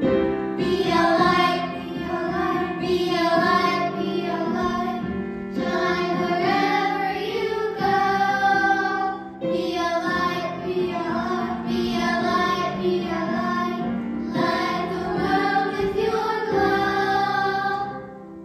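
A small group of children singing a song together over a musical accompaniment, in phrases of a few seconds with short breaths between them.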